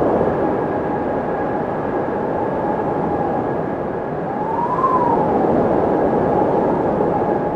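Windmill turning in the wind: a steady rushing sound with a thin constant whine, and a drawn-out creak that rises and falls in pitch once, about five seconds in.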